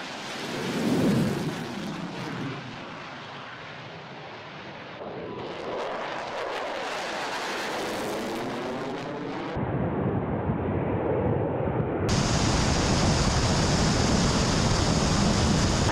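Jet engine noise from Su-34 fighter-bombers in a string of cut-together clips: a swelling rush about a second in, a passing jet with a sweeping hiss in the middle, then steadier, louder engine noise from about ten seconds in.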